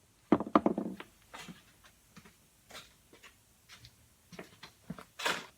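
Workshop handling noises: a short clatter about half a second in, then scattered light clicks and taps, and a louder rustle near the end.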